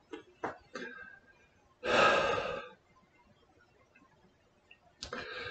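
A man's audible breath, a short rush of air about two seconds in, with a few faint mouth clicks around it.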